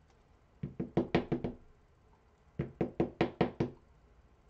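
Knocking on a hard surface in two quick runs of about six knocks each, the second run about two seconds after the first.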